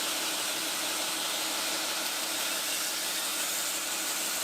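Power grinder running steadily, rough flat-grinding the bevel of a steel kitchen knife blade: an even hiss over a low hum.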